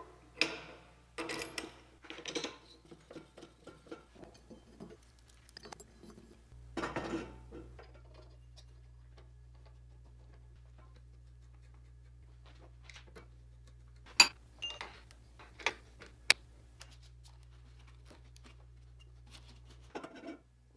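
Powder-coated steel parts and aluminium rollers of a belt grinder being handled and fitted by hand: light metal clinks, taps and scrapes, with a few sharp clicks about two thirds of the way through, over a faint steady low hum.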